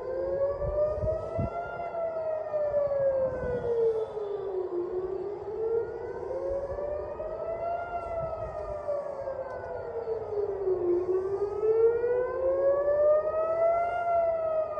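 Civil defence rocket warning siren wailing, its pitch rising and falling slowly, about one rise and fall every six seconds: an alert warning of incoming rockets.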